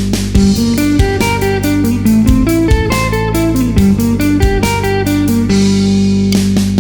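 Guitar playing quick alternate-picked major and minor arpeggio lines, note after note stepping up and down, over a backing track with a sustained bass note and regular drum hits.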